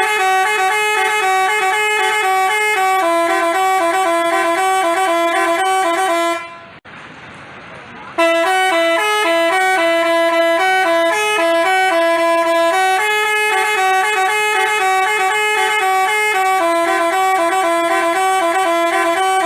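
Telolet 'basuri' bus horn playing a quick tune of alternating horn notes. It plays in two long phrases, broken about six seconds in by a gap of roughly two seconds.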